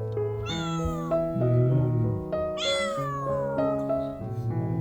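Young cat meowing twice, each meow a long call that falls in pitch, over background music with held notes.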